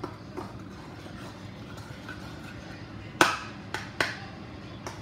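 A knife knocking against the sides of a bowl while stirring glue and activator into slime. There are a few sharp clicks: one faint, then the loudest about three seconds in, followed quickly by two more and one near the end.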